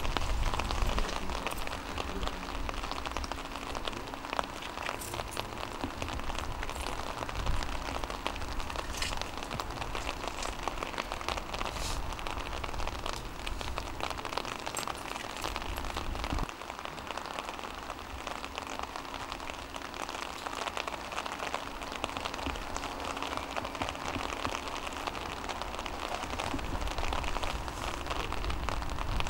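Steady rain falling on stone paving and walls.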